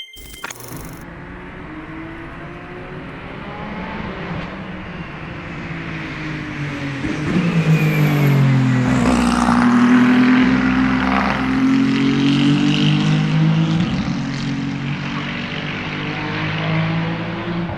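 Race car engine running and growing louder to a peak about halfway through, its pitch bending as it passes, then easing off a little.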